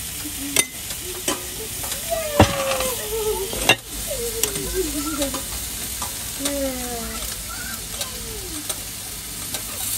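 Food sizzling on a hot barbecue grill, a steady hiss. There are sharp clicks of metal tongs against the grill, and several short falling squeaks.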